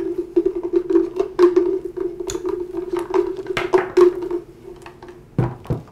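A loose fuel filter rattling inside a Ryobi string trimmer's plastic fuel tank as the trimmer is tipped, then dropping out onto a wooden workbench: a run of irregular clicks and knocks that stops about four and a half seconds in, with one low knock near the end.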